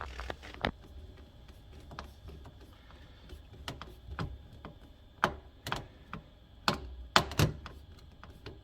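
Metal hose clamp being tightened onto a drain hose over a plastic sink-trap connector: a run of irregular small clicks and taps, a few louder ones in the second half.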